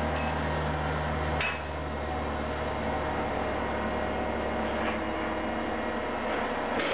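Steady electrical hum of workshop equipment, with a sharp click about a second and a half in after which the low hum weakens. Another click comes near the end, where the low hum cuts off.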